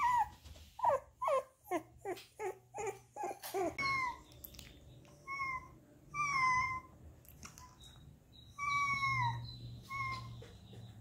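Young puppies whimpering: a quick run of about nine short yelps that drop in pitch, then several longer, high whines that fall in pitch.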